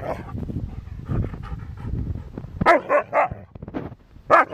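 Siberian huskies vocalizing in rough play: a low, grumbling sound for the first couple of seconds, then a quick run of three barks about two-thirds through and another burst of barking near the end.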